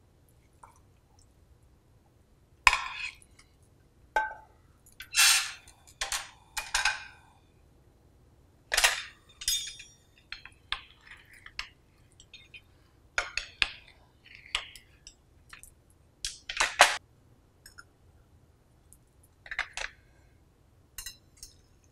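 Kitchenware handled on a stone counter: a spatula scraping a frying pan, the pan and plates set down, and a utensil cutting and clinking on a ceramic plate. It is a string of about a dozen separate clinks, knocks and short scrapes with quiet gaps between them.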